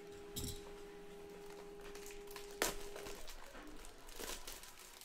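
Hands handling a shrink-wrapped trading-card blaster box, the cellophane wrap crinkling in a few short crackles, the sharpest about two and a half seconds in.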